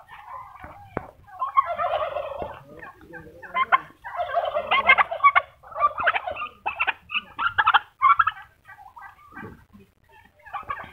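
Domestic turkey toms gobbling: repeated bursts of rapid, rattling gobbles, dying down in the last couple of seconds.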